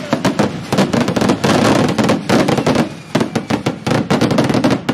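Firecrackers going off in rapid succession, a dense crackle of sharp pops that thins briefly about three seconds in.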